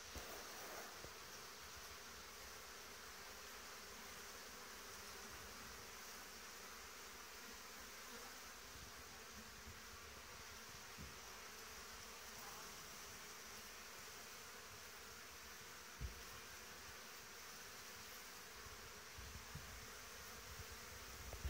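Faint steady buzzing of honeybees flying around hive entrances, with one brief low thump about sixteen seconds in.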